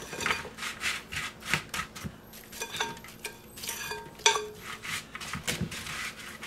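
Cinnamon-coated sweet potato and apple chunks being pushed out of a glass bowl onto a metal sheet pan: a run of soft knocks and rattles as the pieces drop, with a few short ringing clinks of glass and metal, the loudest about four seconds in.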